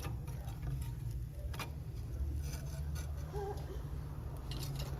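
Wood fire crackling in a fireplace: irregular sharp pops and ticks over a steady low rumble.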